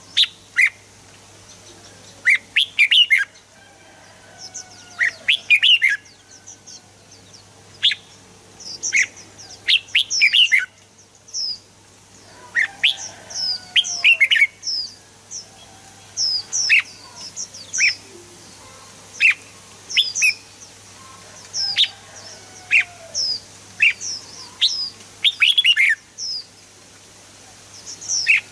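Red-whiskered bulbul singing: short, bright chirping phrases repeated every second or two, with brief pauses between them.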